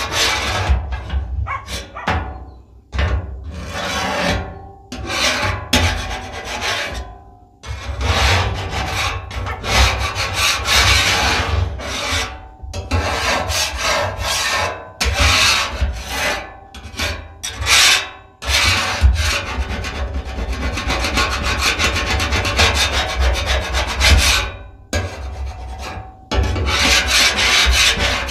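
Flat metal griddle scraper scraping across the steel top of a Blackstone griddle in repeated rough strokes with short pauses between them, clearing oil and residue from the freshly seasoned surface.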